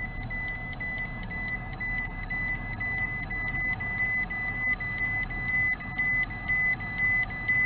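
TERRA radiation dosimeter sounding its dose-rate alarm: a high electronic beep repeating about three times a second. It is alarming at a reading of about 10 microsieverts an hour. Low vehicle rumble runs beneath it.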